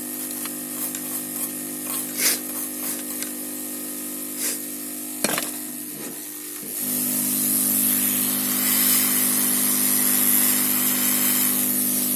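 A few light clicks and scrapes over a steady hum. About seven seconds in, a hot air rework station starts blowing with a steady airy hiss, heating the motherboard to desolder a surface-mount MOSFET.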